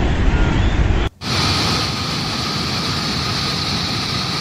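Rushing floodwater and mud flow: a loud, low rumbling rush that cuts off about a second in, followed by a steadier, higher hiss of rushing water.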